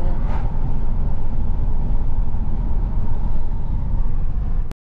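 Steady road and engine rumble of a car driving along, heard from inside the cabin. It cuts out abruptly for a moment near the end.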